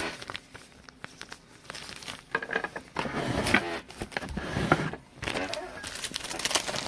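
Trading cards and plastic packaging handled on a table: scattered clicks and short rustles, busiest in the middle.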